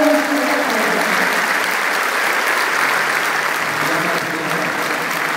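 Audience applauding steadily, many hands clapping together in one even wash of sound.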